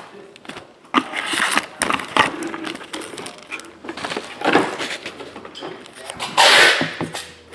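Foil trading-card packs from a Fleer Showcase hockey box crinkling and clattering as they are handled and set down on a stack on a table, in several separate bursts, the loudest and longest crinkle near the end.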